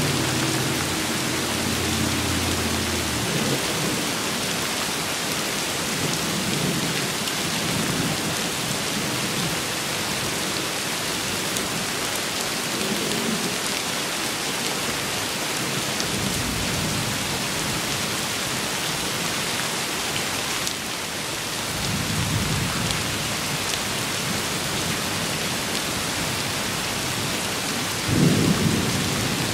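Steady heavy rain hissing, with rolls of thunder rumbling low several times; the loudest roll comes near the end.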